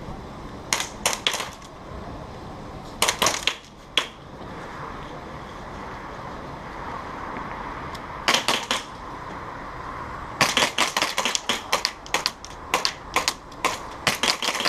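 Airsoft guns firing in strings of sharp, rapid snaps: a few short bursts about a second in, around three seconds and near eight seconds, then a longer run of quick shots from about ten seconds to the end.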